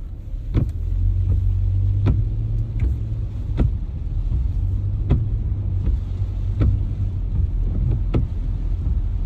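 A motor vehicle running with a steady low rumble, with a sharp knock repeating evenly about every second and a half.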